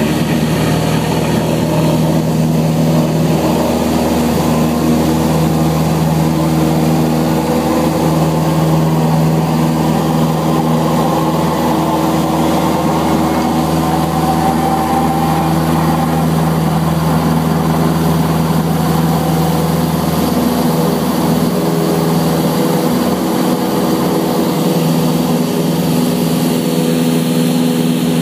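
Single-engine Cessna's piston engine and propeller heard from inside the cabin, running steadily at takeoff power through the takeoff roll and lift-off: a loud, even drone.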